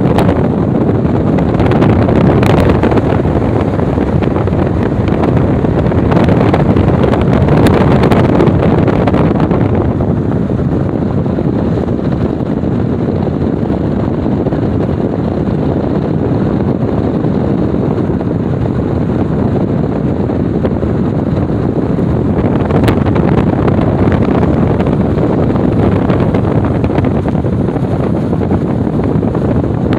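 Wind blowing across the phone's microphone: a loud, steady rushing noise, easing a little about a third of the way in, with a few faint handling clicks.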